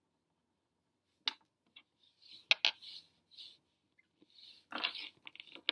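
Small objects being handled on a tabletop: a few sharp clicks and taps with short scraping and rustling noises, starting about a second in.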